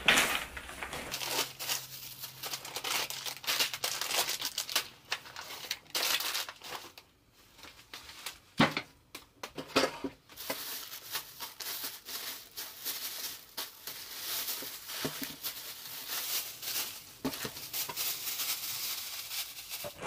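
Crinkling and rustling of wrapping being handled, with many irregular sharp crackles and a short quieter stretch about seven seconds in.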